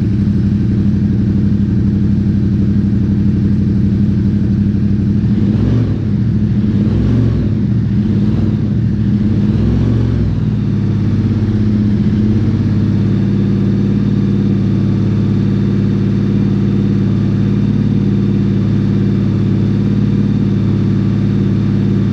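2021 Ducati Diavel 1260's V-twin, warmed up and running through a Termignoni slip-on exhaust with the baffle removed, really loud. It idles steadily, is blipped a few times from about six to eleven seconds in, then is held at a steady raised speed.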